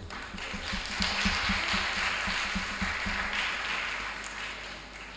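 Audience applauding. It swells in the first second, then fades away over the last two seconds.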